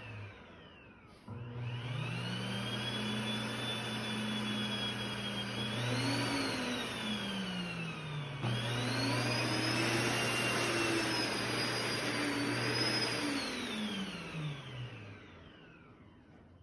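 Electrolux Sonic vacuum cleaner motor whining as it spins up, surging up and down in pitch, cutting out abruptly about halfway through and spinning straight back up, then winding down to a stop near the end. The erratic running and stopping fit the intermittent failure the owner describes.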